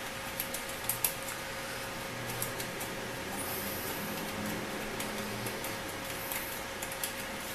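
Small screwdriver loosening screws in an LCD monitor's metal chassis: a few faint, scattered clicks and taps over a steady faint hum.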